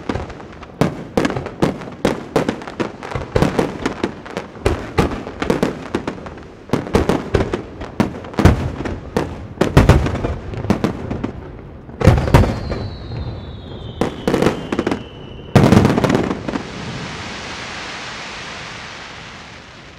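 Aerial firework shells of a large star mine bursting in rapid succession, each a sharp boom trailing off in echo. A long whistle falls in pitch through the last booms. The bursts stop about 16 s in, giving way to a dense hiss that slowly fades.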